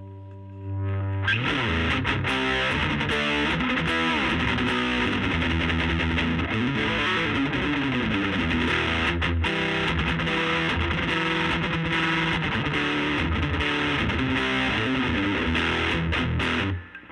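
Electric guitar with P90 pickups played through a Laney Lionheart L5 Studio valve amp on its gain channel, heard from a 15-inch Jensen Alnico speaker, with an overdriven tone. A held chord fades for about a second, then continuous single-note and chord playing starts, with a short break near the end.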